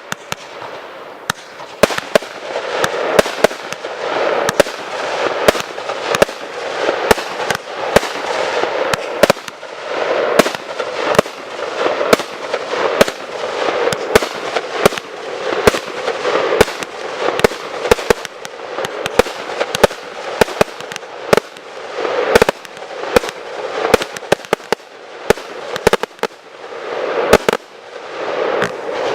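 Fireworks display: dozens of sharp bangs from shells bursting in quick, irregular succession, over a continuous crackling hiss.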